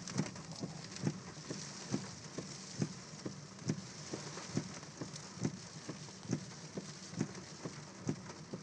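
Car windshield wipers running fast in heavy rain, knocking about twice a second, each stronger knock followed by a softer one, over a steady hiss of rain on the car.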